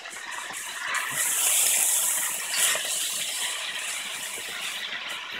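Buckwheat grains with diced bell peppers, onion and garlic being stirred with a wooden spoon in a hot pot: a steady, rattling hiss of grains shifting and frying.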